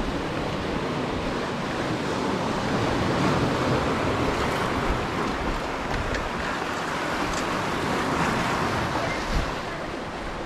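Lake Superior waves washing and breaking against a boulder shoreline in a steady rush, with wind buffeting the microphone.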